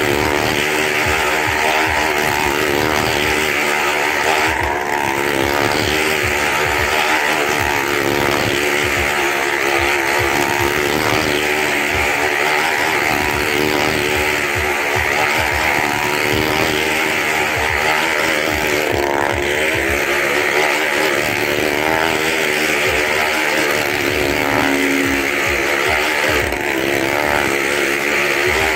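Motorcycle engine running hard and continuously as it circles the wooden wall of a wall-of-death drum, its pitch wavering up and down.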